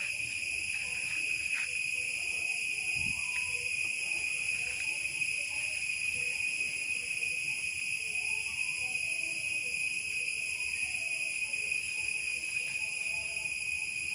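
Steady insect chorus, a continuous high-pitched drone that holds level throughout, with faint scattered sounds underneath.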